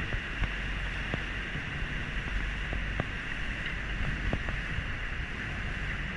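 A small open boat's motor running steadily, with an even hiss of water along the hull and a few light knocks scattered through.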